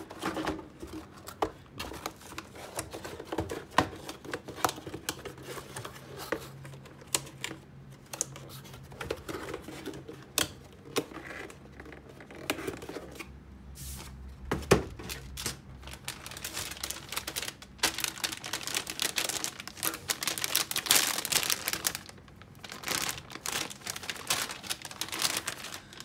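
Motherboard packaging being handled: a cardboard box and its insert are shifted and pulled apart, with scattered clicks and rustling. A dull thump comes a little past halfway, and a denser stretch of rustling follows in the last third.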